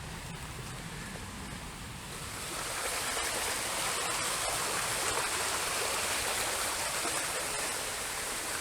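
Steady hiss of water that swells about two and a half seconds in and holds, with faint scattered ticks.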